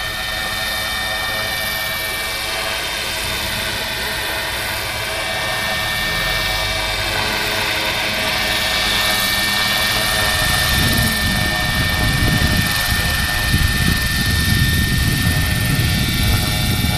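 Large five-bladed RC model helicopter flying overhead: a steady high whine from its drive, with the pitch bending slightly midway as it passes, growing louder. A low rumble comes in about two-thirds of the way through.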